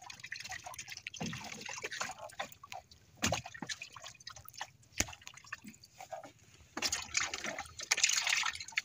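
Water dripping and splashing around a small outrigger boat as a wet fishing hand line is hauled in hand over hand, with scattered light knocks and clicks. The splashing is busiest near the end.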